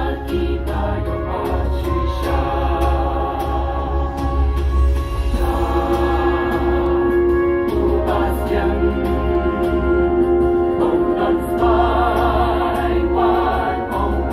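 Mixed choir of women's and men's voices singing a sacred piece together through microphones, with long held chords and vibrato in the voices.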